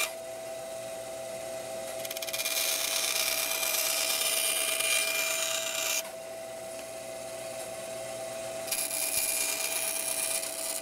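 Bandsaw running with a steady whine, its blade cutting thin 1/8-inch plywood. The cutting hiss swells from about two seconds in to about six, and again near the end.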